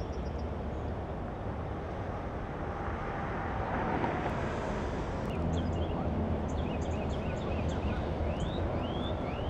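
Steady outdoor background noise, a low rumble and hiss, with small birds chirping from about halfway through, including a few quick rising calls near the end.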